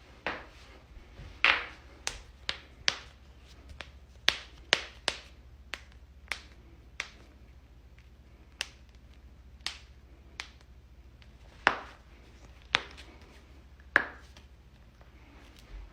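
Human joints cracking: a run of about eighteen sharp single pops at uneven intervals, some half a second apart and some with gaps of a second or more.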